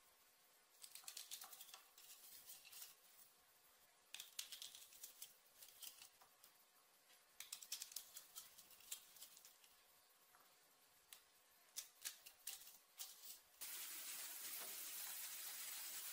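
Scattered bursts of light clicking and tapping from kitchen utensils at work. Near the end a steady hiss starts suddenly.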